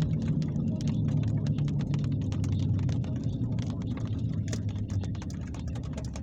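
Thunder rolling: a deep rumble that is loudest at the start and fades away over several seconds, with scattered sharp ticks over it.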